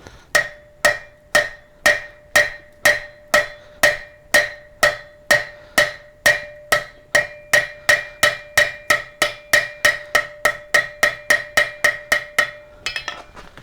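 Blacksmith's hammer striking hot steel over the hot cut hardy on the anvil, cutting the bar part-way through: a steady run of ringing blows about two a second that quicken slightly, ending in a few quick, lighter taps.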